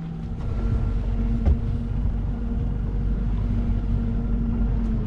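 Panga's outboard motor running steadily, a low rumble under an even hum, with one short knock about a second and a half in.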